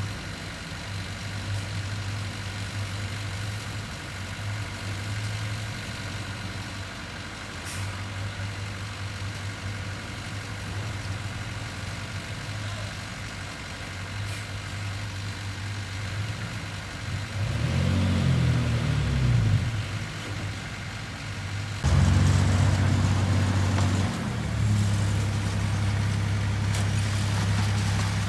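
Diesel engine of heavy earthmoving machinery running steadily. It revs up and back down once around two-thirds of the way through, then steps up suddenly to a louder, working pace that holds for the rest.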